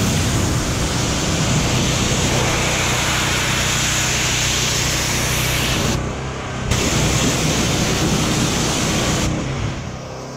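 Pressure washer spray hissing hard against the tow truck's steel underlift. The spray stops briefly about six seconds in, starts again, and cuts off a little after nine seconds, while a steady low hum runs underneath.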